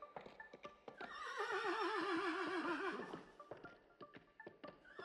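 Horse sound effect: hooves clip-clopping throughout, with a horse whinnying for about two seconds from a second in, wavering and falling in pitch. A second whinny starts at the very end.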